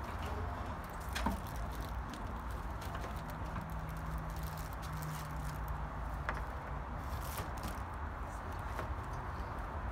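Scattered light knocks and scrapes of a Midea Easycool window air conditioner's case being handled and fitted into a window frame onto its support bracket, over a steady low rumble.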